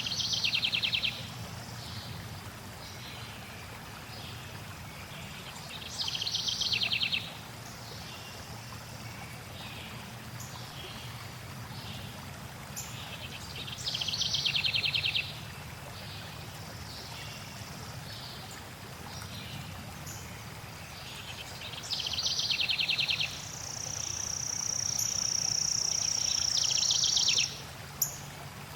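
A songbird singing a short rapid trill phrase roughly every eight seconds, with one long, steady high whistle near the end, over the steady sound of flowing water.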